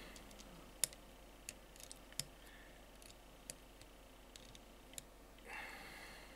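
Faint, scattered clicks and ticks of a small tool turning a metal RBA base into an Egrip vape mod, about one every second. Near the end comes a soft rustle lasting about a second.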